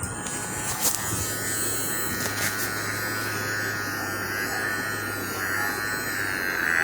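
Electric massager motor running with a steady buzz and hum, with two brief clicks in the first few seconds.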